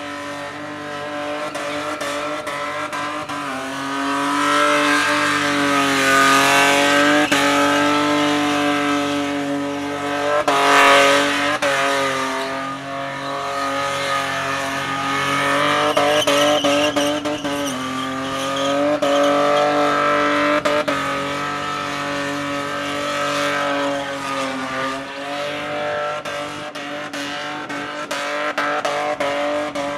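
Ford EF Falcon engine running hard through a burnout, its pitch rising and falling as the throttle is worked, over the hiss and squeal of the spinning rear tyres. There is a louder surge about eleven seconds in.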